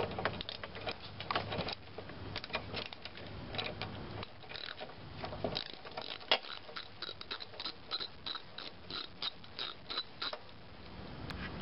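A 3/8-inch socket ratchet with a 13/16-inch spark plug socket clicking in runs of quick metallic ticks as the spark plug is unscrewed from a small Briggs and Stratton engine's cylinder head. The clicks come about four a second later on and stop about ten seconds in.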